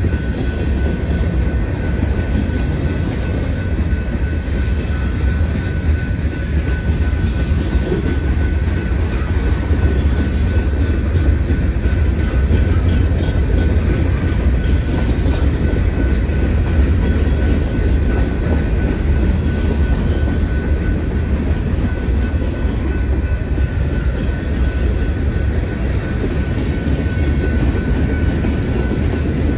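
Freight train cars (covered hoppers, gondolas, boxcars) rolling past, a steady loud rumble of steel wheels on rail, with a thin steady high tone over it.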